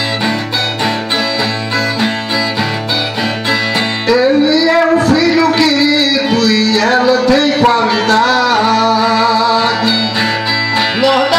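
Brazilian viola (ten-string folk guitar) played in a steady, repeated plucked pattern; from about four seconds in, a man's voice comes in singing long, drawn-out notes over it, in the style of sertão viola song.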